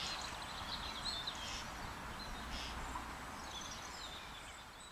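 Outdoor ambience of small birds chirping over a steady background hiss, fading out near the end.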